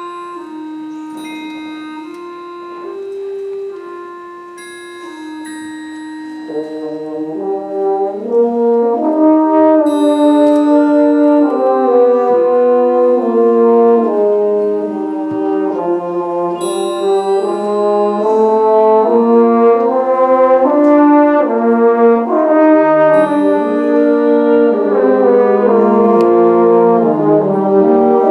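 Symphonic concert band playing. A soft single melody line opens, then about six seconds in the full band enters and the music grows louder, with French horns and other brass carrying sustained chords.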